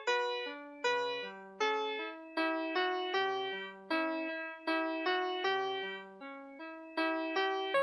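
VTech Schlummerschnuffi plush toy's built-in music chip playing a classical melody in electronic piano tones, one chord struck about every 0.8 s and fading before the next.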